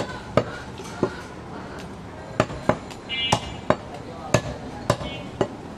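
Heavy butcher's cleaver chopping through goat ribs on a wooden chopping block: about ten sharp chops, unevenly spaced, some coming in quick pairs.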